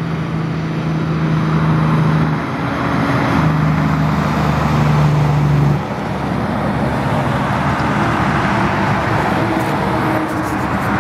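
Highway traffic with a tractor-trailer passing close by: tyre and engine noise with a steady low engine hum that drops away about six seconds in.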